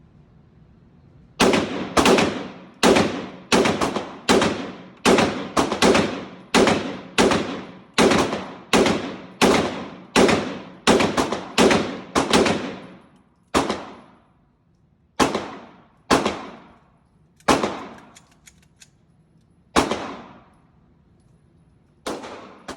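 Gunshots at a shooting range: a quick string of about twenty shots, roughly two a second, each with a short echoing tail. After that come about six slower, spaced shots.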